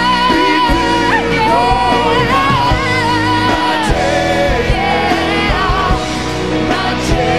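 Live band with guitars, drums and keyboards playing while a man and a woman sing a duet together, holding long notes.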